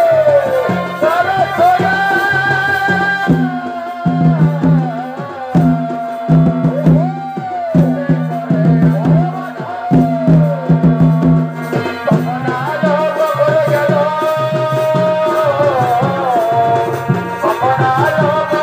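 Chhau dance accompaniment: a wavering, gliding reed-pipe melody, typical of the shehnai, over dense beating of folk drums such as the dhol and dhamsa.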